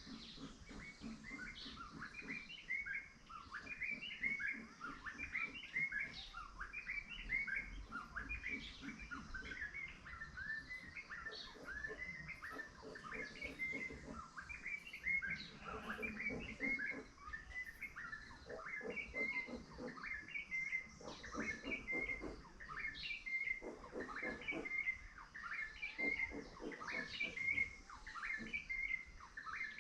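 Many small birds chirping together in a dense, continuous chorus of short, high chirps.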